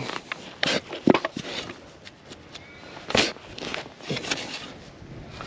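A hand digging tool cutting a plug in dirt: five or six short, sharp strikes into the soil.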